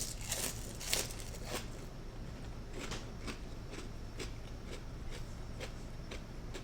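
Close-up chewing of toasted crostini with dip: a few loud crunches in the first second and a half, then softer crunches about every half second.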